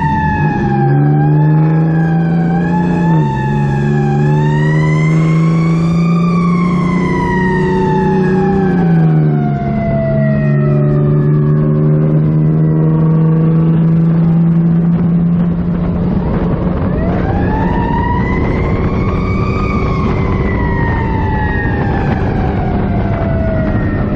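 Fire truck siren wailing in long, slow rises and falls. It climbs to a peak, slides down over several seconds, then winds up again for a second wail about two-thirds of the way through. Underneath, the truck's engine hums steadily, its pitch dropping briefly twice as the gears shift.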